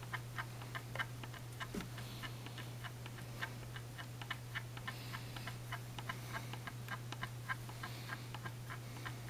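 Light, fairly regular ticking, about four ticks a second of uneven strength, over a steady low hum.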